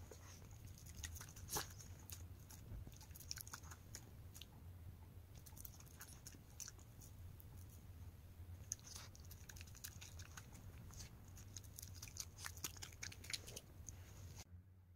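A small dog chewing soft sweet-potato cake taken from a person's hand: faint chewing with many small clicks coming in irregular clusters.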